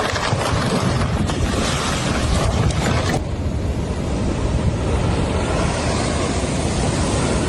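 Hissing, clattering noise that cuts off abruptly about three seconds in, replaced by strong wind buffeting the microphone over rumbling, crashing sea waves.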